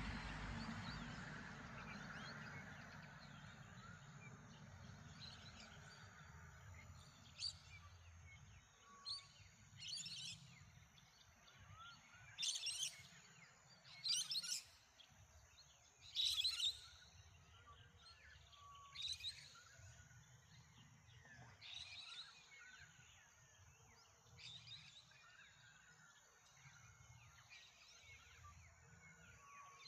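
Morning birds calling in short, sharp bursts, loudest in a cluster through the middle, over a faint steady outdoor background. A low rumble fades away over the first few seconds.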